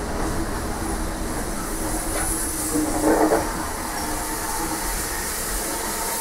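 Steam railmotor No 93 running along the track: steady wheel and running noise, with a brief louder squeal about three seconds in.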